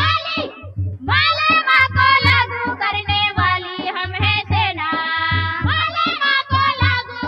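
A song: a singing voice over a steady drum beat, with a brief break about half a second in before the singing resumes.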